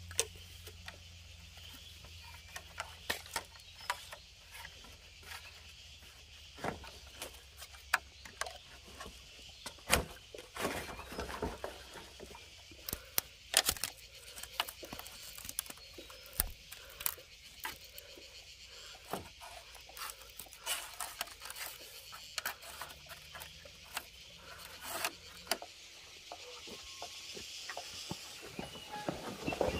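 Irregular knocks, taps and clicks, scattered unevenly with a few sharper ones, over a steady high-pitched background hiss.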